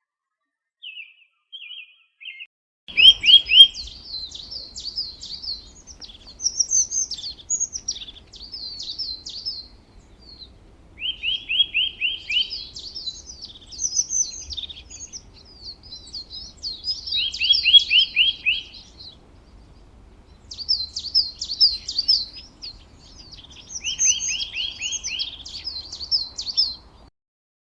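A songbird singing the same song four times, each a quick run of about five notes followed by a longer high twittering, with a few short chirps before the first song.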